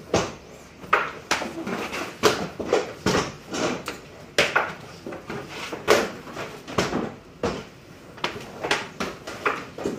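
Wooden frames and boards of hand screen printing knocking and clacking against the printing table and the stacked fabric, with sharp knocks every half second to a second in an uneven rhythm.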